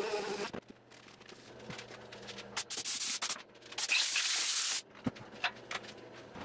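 Warrior palm detail sander running against wood, switching off within the first second. After it come light knocks and two loud bursts of hiss, the second longer than the first.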